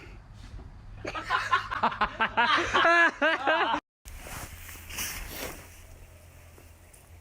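A person laughing hard in a quick run of high-pitched bursts for about three seconds, cut off abruptly. This is followed by quieter outdoor background noise with a brief rush of sound.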